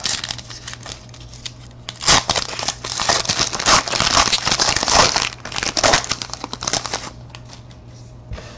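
Foil trading card pack wrapper being torn open and crumpled by hand, a dense crinkling that is heaviest from about two seconds in to about seven seconds, with lighter crinkles before it.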